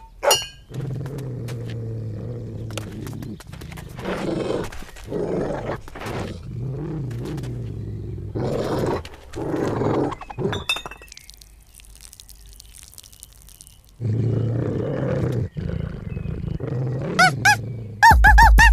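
Cartoon dog growling in long, low growls with short breaks, dying down for a few seconds, then growling again; near the end a quick run of short high squeaks.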